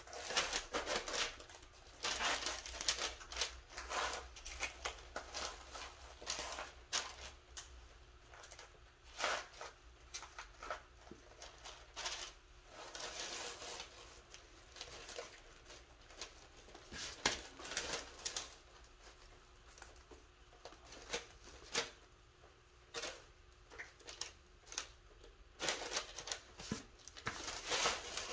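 Hands placing and pressing small metal weld studs into a soft filler skim coat on a cardboard backing covered in plastic sheeting: scattered light clicks, taps and crinkly rustles, coming irregularly throughout.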